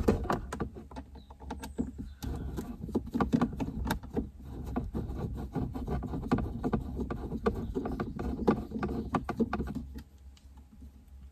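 Screwdriver turning a Torx screw out of the BMW E36 instrument cluster mounting: a rapid run of small clicks and scrapes that stops about ten seconds in.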